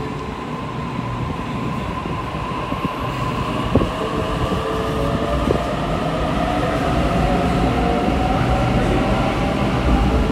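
Sydney Trains Waratah (A set) double-deck electric train pulling out of an underground platform. Its traction motors whine, rising slowly in pitch and getting louder as it gathers speed, over a low rumble. Two sharp clicks come from the running gear, about four and five and a half seconds in.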